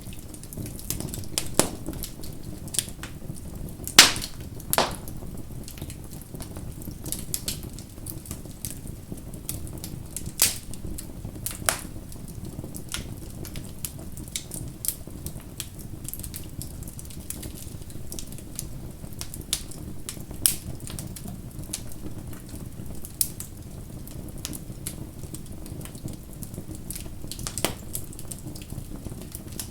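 Bonfire crackling: a steady low rush of burning wood with scattered sharp pops and snaps, the loudest pair about four seconds in.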